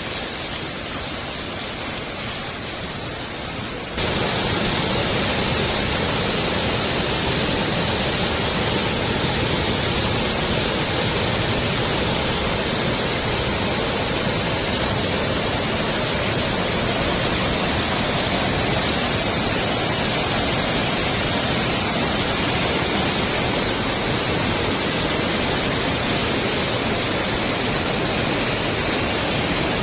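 Swollen Godavari river in flood: a steady, heavy rush of fast turbulent water, which gets louder and fuller about four seconds in.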